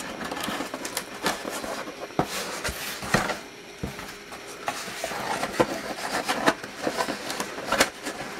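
Corrugated cardboard box being handled and folded by hand: irregular scrapes, rustles and light taps of cardboard.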